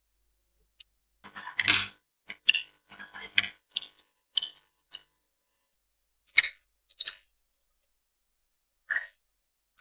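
Close-miked chewing of spicy noodles: a run of short wet mouth sounds for a few seconds, then a few single ones spaced well apart.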